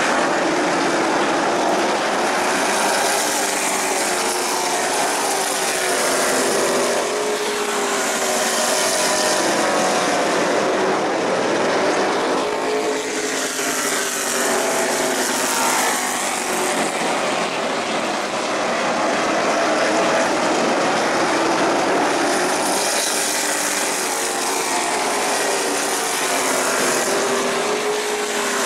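A field of stock cars racing on an asphalt short-track oval: several engines run hard at once, their overlapping notes wavering and swelling every few seconds as cars pass by.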